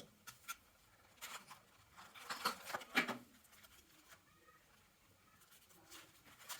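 Faint rustling and light taps of a cardboard box and paper inserts being handled, loudest around two to three seconds in, then mostly quiet.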